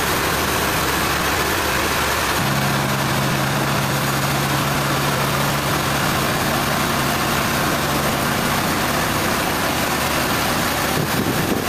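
Sawmill engine running steadily, with a low hum joining in about two seconds in and fading away after about eight seconds.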